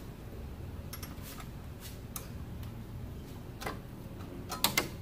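Scattered light plastic clicks and taps from a flathead screwdriver working the yellow locking tab of an airbag wiring connector. A quick pair of sharper clicks comes near the end.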